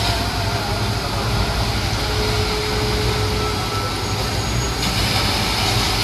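Steady low rumble of a heavy vehicle's engine, with a constant hiss over it.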